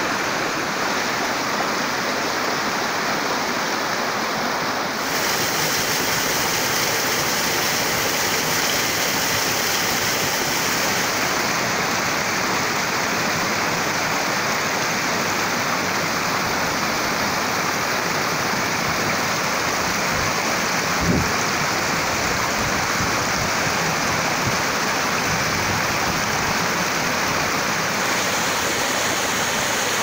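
Mountain stream rushing over rocks, then a small waterfall splashing into a shallow pool: steady rushing water that shifts in tone about five seconds in and a few times after. A brief low thump a little past two-thirds through.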